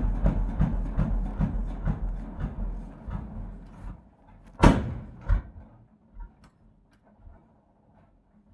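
Lanz Bulldog's single-cylinder two-stroke hot-bulb engine running down to a stop, its slow beats spreading apart and fading out about four seconds in. Then comes a loud sharp knock, and a smaller one about half a second later.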